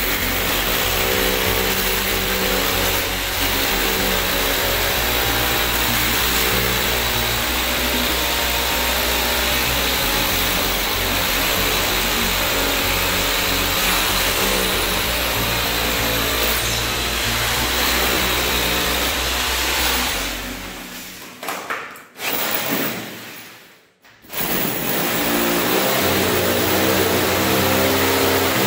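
Corded electric drill running under load, boring injection holes into the floor along the base of the wall for termite treatment. About two-thirds of the way through it stops for a few seconds, then starts again.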